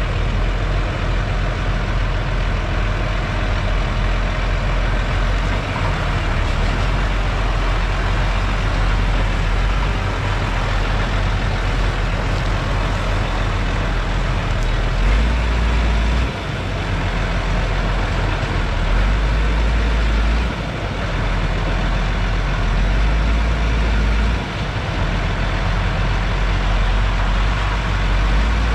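Diesel engine of a New Holland tractor running hard while its high-lift cane cart is raised and tipped to dump sugarcane into a truck box. In the second half the low rumble swells and drops back sharply four times.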